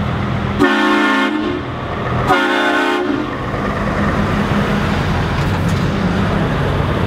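Scania truck pulling a cement-mixer trailer, its diesel engine running with a steady low rumble as it rolls slowly past. Its horn sounds two short blasts, one about a second in and one at about two and a half seconds.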